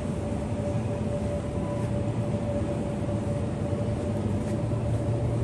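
Steady low hum and rumble of a supermarket's refrigerated display cases and ventilation, with a thin steady tone above it.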